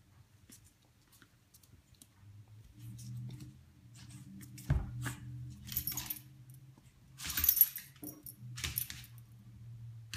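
Metal dog tag on a collar jingling and clinking in several short bursts as the dog moves, with a low hum underneath.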